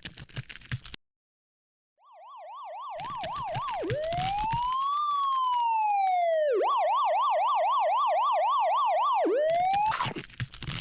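Electronic emergency-vehicle siren that comes in about two seconds in and grows louder. It gives a fast yelp, then one slow wail rising and falling, then the fast yelp again, and is cut off near the end by a short burst of noise.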